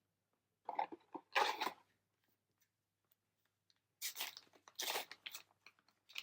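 Foil trading-card booster pack wrapper crinkling and being torn open, in two bursts of crackling: one about a second in, the other around four to five seconds.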